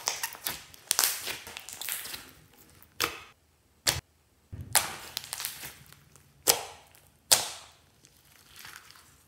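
Hands squeezing and pressing a large mass of glossy slime: a series of sharp pops and crackling squelches as trapped air bursts out, with short quiet gaps between them.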